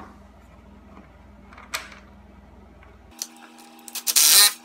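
Hand ratchet clicking rapidly near the end as it turns an 8mm bolt to refit a plastic underbody flap. A couple of single light clicks come before it.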